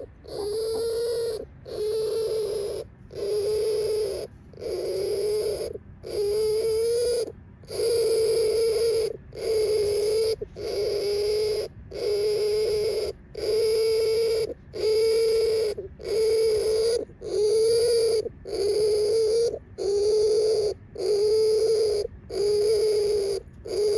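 A hamster's strange repeated whining noise, each about a second long with a slightly wavering pitch, coming steadily about every second and a half.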